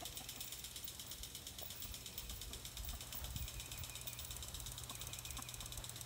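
A steady, fast-pulsing high-pitched insect chorus, with a low rumble underneath.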